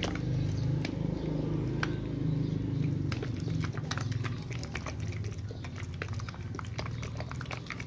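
Plastic bottle of raw-egg fertiliser mix with crushed eggshell being shaken hard by hand: the liquid sloshes and eggshell pieces make many quick clicks against the plastic.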